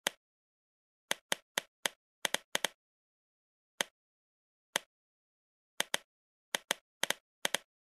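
Sharp clicks of a Maglite XL100 LED flashlight's tail-cap push switch, about sixteen in irregular groups of one to three, as the light is clicked out of its lockout mode and comes on.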